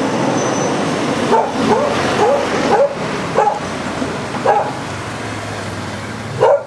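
Dog yelping and whining in a run of short rising-and-falling cries, about two a second, with one more near the end, as it is held down on the ground.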